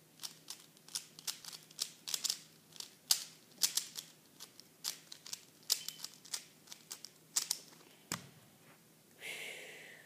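A 55 mm Zhanchi 3x3 speed cube clicking sharply and irregularly, two or three times a second, as it is turned over in the hands. About eight seconds in there is a single dull knock, and near the end a short rustle.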